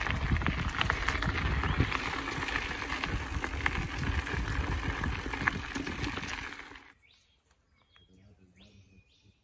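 Mountain bike riding along a dirt trail: wind rumbling on the microphone, tyres on the dirt and the bike rattling over bumps. The riding noise cuts off abruptly about seven seconds in, leaving faint bird calls.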